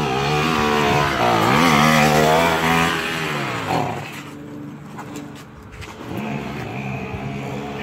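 Small moped engine revving as it rides past, its pitch rising and falling. About four seconds in the pitch drops and the engine fades as the moped pulls away. It comes back fainter near the end.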